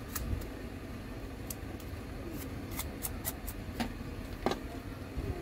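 Irregular light clicks and scratches of a small hand tool working over a phone's frame, scraping out old screen adhesive, glass fragments and dust, over a low steady hum.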